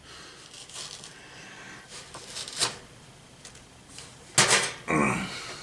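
Lid being peeled back from a hot instant ramen cup: faint rustling and crinkling with a few small clicks. A short breathy vocal sound about four and a half seconds in is the loudest part, followed by a brief hiss.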